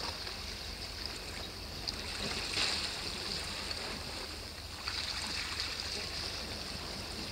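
Sea waves washing against a rocky shore: a steady hiss that swells and fades every few seconds.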